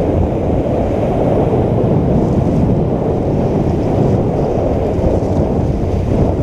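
Loud, steady wind buffeting the microphone over surf washing in along the beach.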